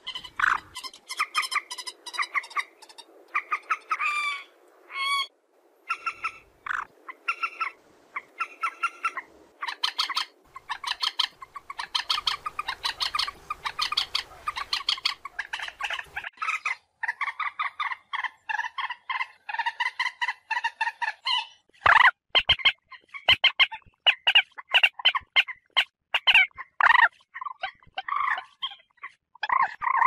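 Common moorhen calling in rapid runs of short, sharp notes, with louder, more separated calls from about 22 seconds in.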